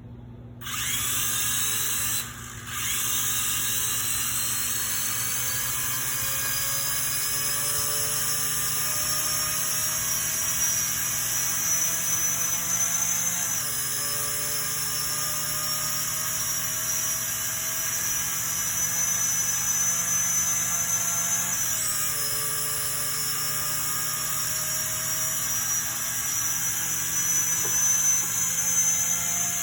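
Bolt FPV race drone's motors running at low throttle: a high whine that starts about a second in, cuts out briefly, then runs steadily, creeping slowly up in pitch with two small dips.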